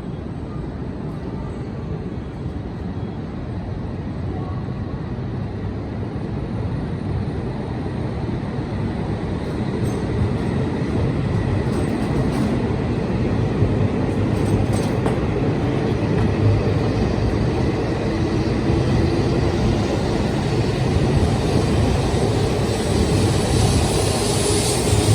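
Train running with a steady rumble that grows gradually louder.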